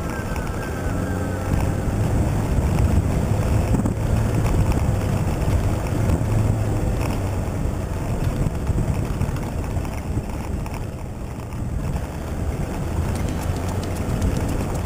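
Toyota Hilux 4x4 driving on a rough off-road track, its engine and running gear making a steady low rumble.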